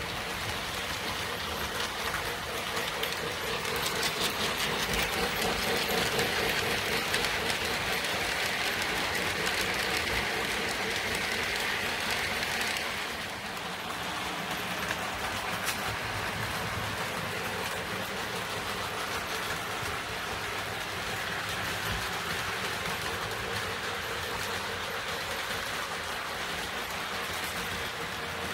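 O gauge model trains running on three-rail track: 4-6-4 Hudson steam locomotives and freight cars rolling along with a steady mechanical running sound of wheels on rail. It is louder for the first half and drops a little about halfway through.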